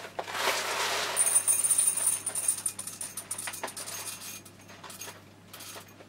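Kraft-paper coffee bag rustling as it is handled, then whole coffee beans dropping into a mug on a scale, thinning to a few single beans clicking in before fading out.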